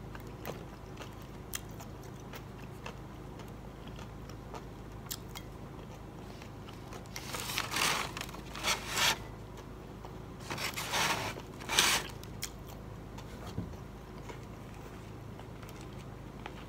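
Eating sounds: crunchy fried catfish and fries being bitten and chewed, and a plastic fork scraping the plate, in two clusters of scratchy noise about seven and eleven seconds in.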